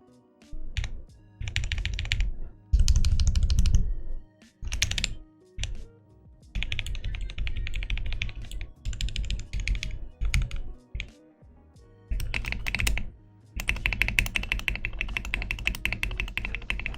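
Fast typing on a Gamakay K87 tenkeyless mechanical keyboard with Krytox 205g0-lubed Tecsee Purple Panda tactile switches and tape-modded stabilizers: dense runs of keystrokes in bursts of one to two seconds, broken by short pauses.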